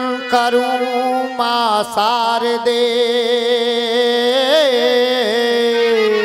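Rasiya folk singing: a voice holds long drawn-out notes, with a wavering turn about four and a half seconds in.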